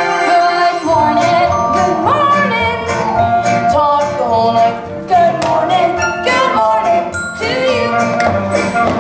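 Young voices singing an upbeat show tune over instrumental accompaniment, as a stage musical number. The low accompaniment comes in about a second in.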